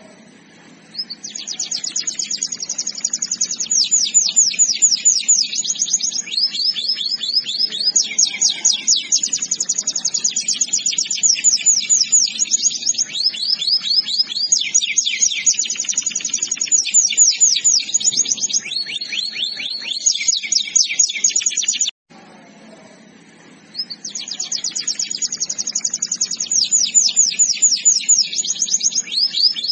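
Domestic canary singing long rolling trills: fast runs of repeated high notes, each sweeping downward, switching to a new trill every second or two. The song cuts off abruptly about three-quarters of the way through, then starts again about two seconds later.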